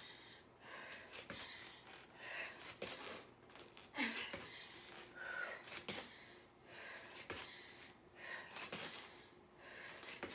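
Hard breathing of a woman exercising: gasping breaths about once a second, with a few soft thuds mixed in.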